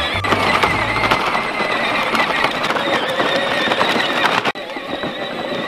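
Battery-powered ride-on toy tractor driving over a dirt trail: its motor and gearbox whine steadily while the hard plastic wheels crunch and crackle over gravel and twigs. The sound drops out briefly about four and a half seconds in.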